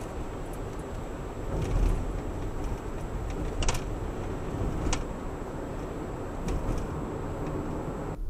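Car running on the road, heard through a dashcam's built-in microphone inside the cabin: a steady low road-and-engine rumble, with two sharp clicks around the middle. The sound cuts off abruptly near the end.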